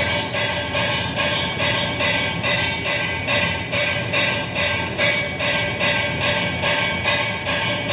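Repeated banging, steady and even at about two strikes a second, each strike with a light ringing tone.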